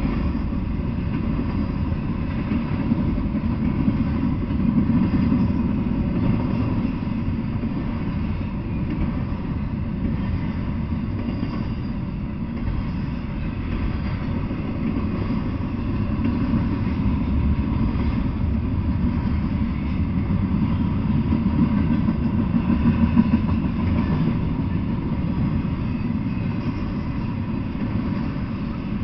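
Intermodal freight train of well cars carrying containers and trailers rolling past, a steady low rumble of steel wheels on the rails.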